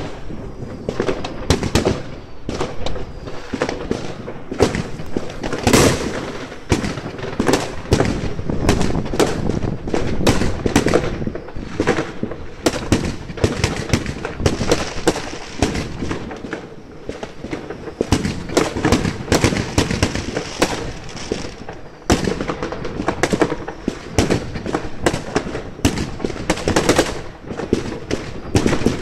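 Fireworks going off without a break: many bangs and crackles overlapping, several bursts at once, with an aerial shell bursting close by at the start.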